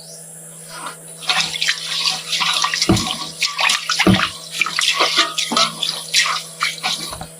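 Water splashing and sloshing irregularly as something is washed by hand in a pot or basin, with two dull knocks in the middle.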